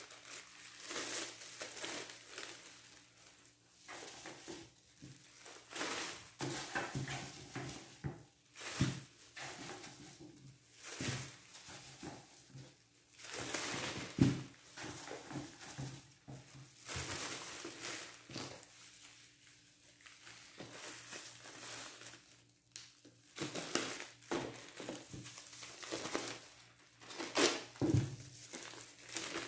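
Thin plastic bags crinkling and rustling in irregular bursts as they are handled and filled, with a sharper knock about halfway through.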